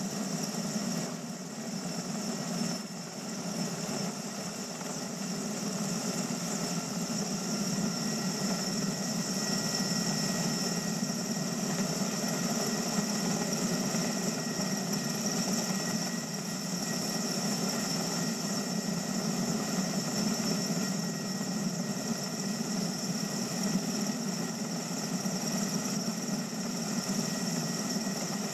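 Erickson S-64 Aircrane heavy-lift helicopter running steadily, its twin turbine engines and rotor giving a constant noise with steady high whining tones over it.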